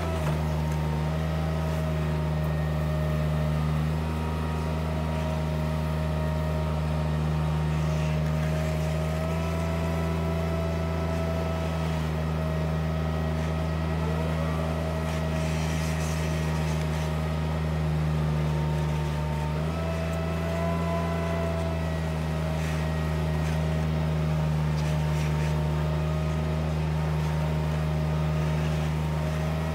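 Steady drone of a small farm loader's engine running at a constant speed as the loader pushes a scraper blade through manure slurry, with small shifts in pitch now and then.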